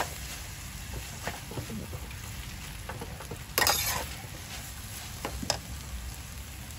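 Fried rice being stir-fried in a metal pan: a large metal spoon scrapes and turns the rice over a steady sizzle, with a few short sharp scrapes and one louder scrape just past halfway.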